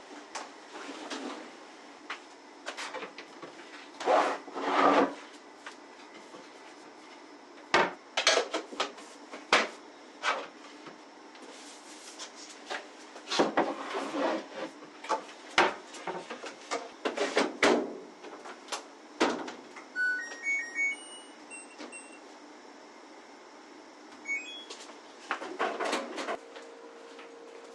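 Household handling noises: a series of knocks, clunks and clatters of objects being moved and set down, with a short run of electronic beeps about twenty seconds in and a steady hum starting near the end.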